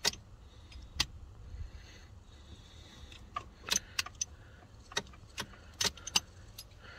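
Car keys jangling and clicking at the ignition as the key is worked in a newly fitted ignition barrel, in about ten sharp irregular clicks, with no engine cranking or starting.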